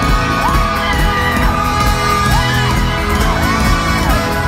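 Live folk-rock band playing loudly in an arena, strummed acoustic guitar over a steady kick-drum beat, with the crowd cheering and whooping over the music.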